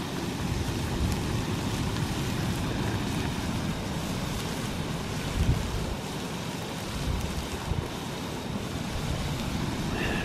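Wind buffeting the microphone in low, uneven gusts over a steady hiss from a camping canister gas stove heating a pot of food.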